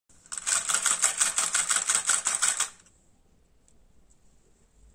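Small DC motor of a toy ice-cream-stick rowing boat driving its oar linkage, a fast, even clatter that stops about halfway through.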